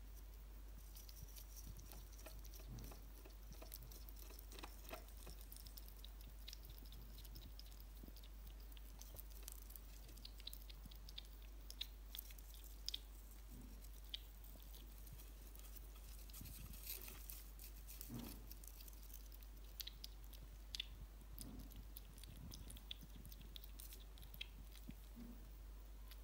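Hedgehog chewing and smacking its food: faint, irregular small clicks and crunches.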